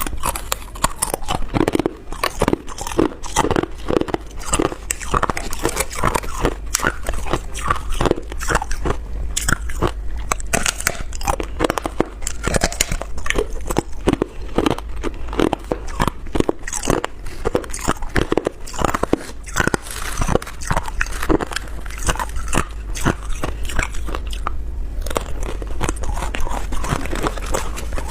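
Person biting and chewing ice, a dense run of loud, rapid crunches and cracks close to the microphone.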